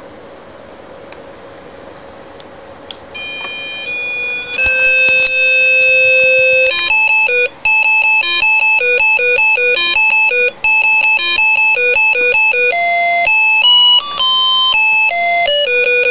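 Arduino-generated 8-bit square-wave melody played through a small paper-cone loudspeaker, one note at a time. A few faint clicks come first, and the tune starts about three seconds in.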